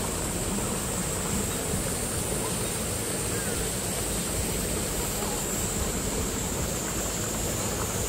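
Shallow rocky mountain stream flowing, a steady rushing water noise with a constant high-pitched hiss above it.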